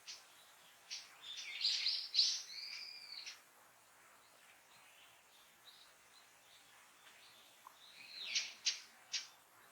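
Small songbird calling: sharp, short high notes, a brief twittering phrase about a second in, and another run of calls near the end.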